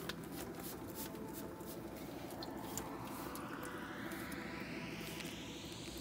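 Gloved hands rubbing, pulling and flexing the rubber refrigerator door gasket, with many small clicks and squishes, over a steady low hum. A faint whine rises in pitch through the second half.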